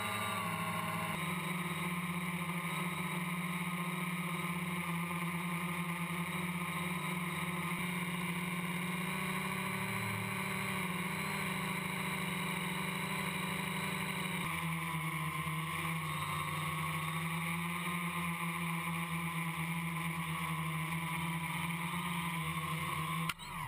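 Quadcopter's motors and propellers running steadily as heard from its onboard camera, the pitch shifting in steps a few times with the throttle. Near the end the sound drops suddenly as the motors are throttled down for landing.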